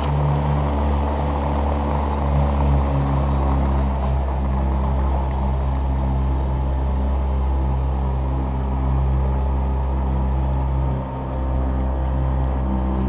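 Small outboard motor running at a steady speed, pushing the boat along. Its level dips briefly about eleven seconds in.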